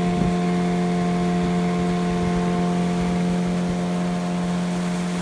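Small boat's motor running steadily with an even, unchanging hum.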